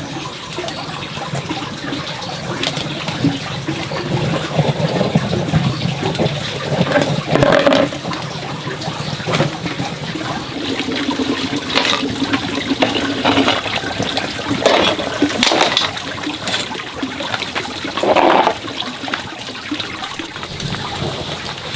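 Water running and splashing steadily, with irregular knocks and clatters over it.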